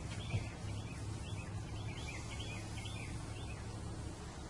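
Small birds chirping in quick repeated calls over a steady low hum.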